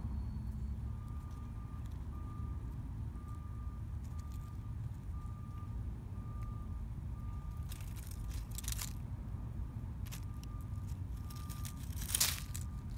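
A distant electronic beeper sounding evenly at one steady pitch, about once a second, like a vehicle's reversing alarm, over a low steady rumble of traffic. Dry leaves crackle briefly past the middle and loudest near the end as a small animal moves through the leaf litter.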